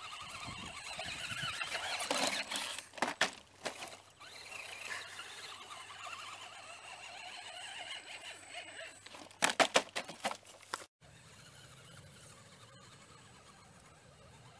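Electric drive motor and gears of a scale RC rock crawler whining as it works up a rock face, with several sharp knocks about three seconds in and a quick cluster of them near ten seconds. The whine cuts off abruptly before eleven seconds, leaving a quieter steady background.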